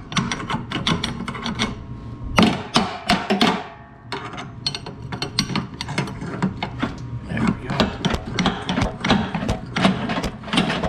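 Rusted blade-engage pivot plate on a Troy-Bilt riding mower being worked back and forth with a pry bar: rapid metal clicks, clanks and scraping, with a short pause about four seconds in. The pivot has just broken free after soaking in penetrant.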